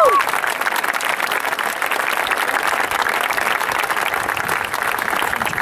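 Crowd applauding in a steady, sustained round of clapping.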